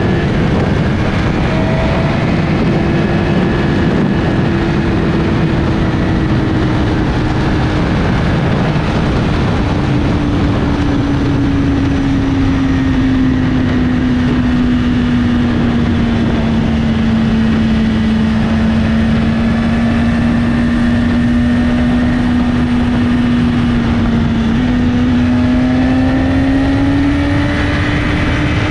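BMW S1000RR's inline-four with an Akrapovic slip-on exhaust, cruising at steady, moderate revs with wind rushing past. The engine note sags gradually through the middle and climbs again near the end.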